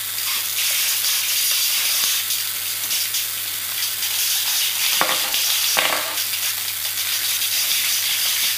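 Blind-bag packet crinkling and being torn open by hand: a steady crackling rustle, with two sharper crackles about five and six seconds in.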